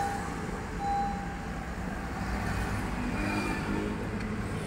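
Honda CR-V turbo idling with a steady low rumble, with a brief steady tone about a second in.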